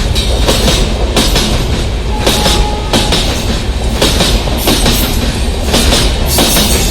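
Diesel-hauled passenger train passing at speed: a loud, steady rumble of the coaches with rapid, repeated clickety-clack of the wheels over the rail joints.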